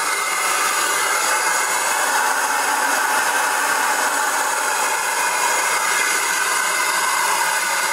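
Dust-extraction vacuum running, a loud, steady rush of air drawn through the suction hose on the grinder's guard.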